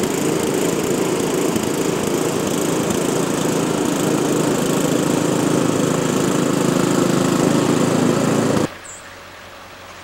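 A small engine running steadily at a constant speed. It cuts off abruptly near the end, leaving a quieter steady background hiss.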